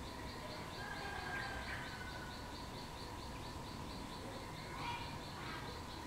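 Yellow-vented bulbul giving short chirping calls, a phrase about a second in and another near the end. A steady high pulsing of about four beats a second and a faint steady hum run under it.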